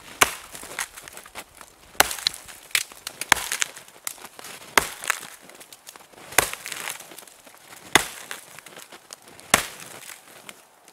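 An axe chopping into the base of a dead standing tree: about seven sharp strikes, spaced roughly a second and a half apart.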